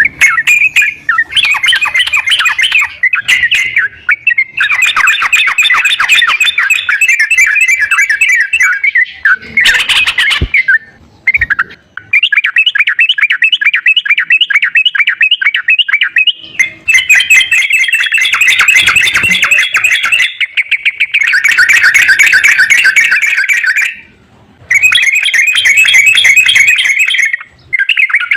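Yellow-vented bulbul (trucukan) song played as a lure track to spur a caged bird to sing: rapid chattering phrases in long runs, broken by a few short pauses.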